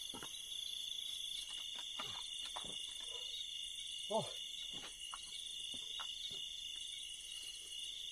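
Night insect chorus: crickets trilling steadily, with a higher pulsing trill above. Scattered light taps and knocks come through it, and a short voice-like sound about four seconds in.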